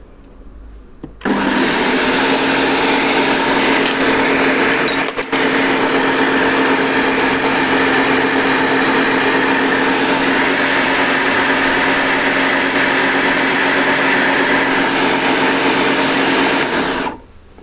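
Ninja Smart Screen blender switching on about a second in and running steadily at speed, blending vinegar into thick mayonnaise. It dips briefly about five seconds in and stops shortly before the end.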